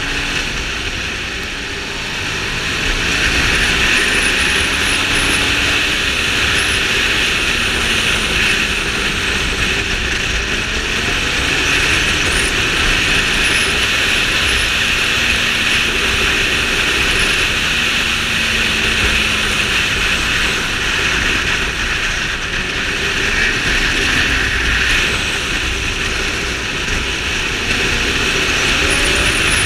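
Ducati Multistrada 620's air-cooled L-twin engine running under steady wind rush on the camera microphone, its pitch rising and falling with the throttle. The sound swells again about three seconds in.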